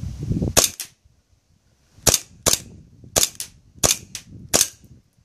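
Airsoft pistol fired five times at an irregular pace, each shot a sharp snap followed a fraction of a second later by a second click.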